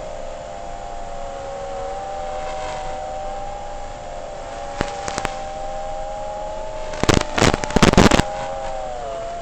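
FPV freestyle quadcopter's motors whining at a fairly steady pitch, with a few sharp clicks about five seconds in and a loud crackling burst lasting about a second near the end.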